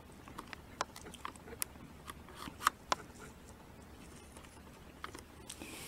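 Faint, irregular small clicks and ticks, a dozen or so a few tenths of a second to a second apart, over quiet room tone.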